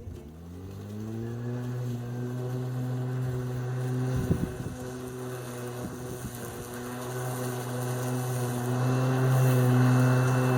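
Murray Twin 18-volt cordless lawn mower's electric motor spinning up, its whine rising in pitch for about a second and a half after a click. It then runs at a steady pitch, with a knock about four seconds in, and grows louder near the end.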